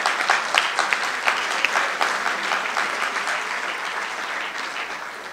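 Audience applauding, many hands clapping at once, tapering off near the end.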